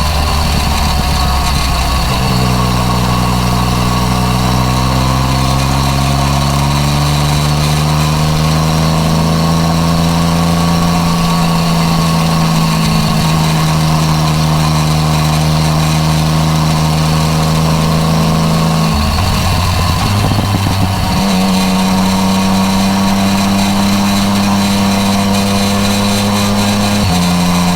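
Yamaha MT-09 Tracer's inline three-cylinder engine running through an Akrapovič exhaust. Its pitch holds steady for long stretches, drifts gently, and steps abruptly about four times as the revs change.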